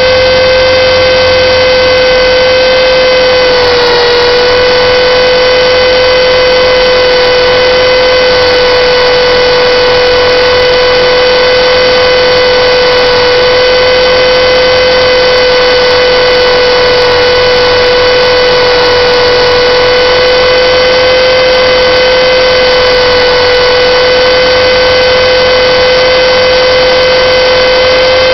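Align T-Rex 450 electric RC helicopter heard from its onboard camera: a loud, steady whine from the brushless motor and rotor drivetrain in flight. The pitch dips slightly about four seconds in, then holds.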